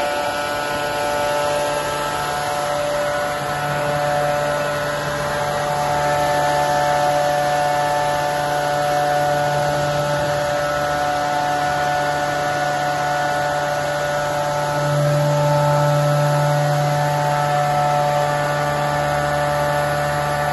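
CNC copy shaper's cutter spindle motors running at steady speed, a steady multi-tone whine over a low hum. The hum grows louder about four seconds in and again about fifteen seconds in.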